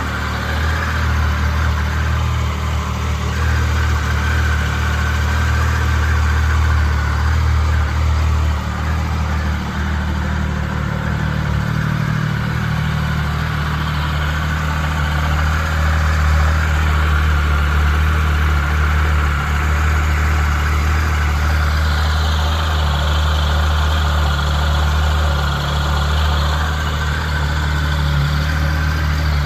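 Triumph Tiger 1050's inline three-cylinder engine idling steadily through its stock exhaust.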